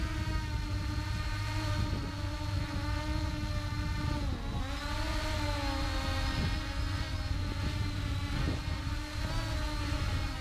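Ehang Ghost quadcopter's electric motors and propellers whining steadily, heard from its onboard camera, with wind rumble on the microphone. The pitch dips briefly and recovers about four seconds in.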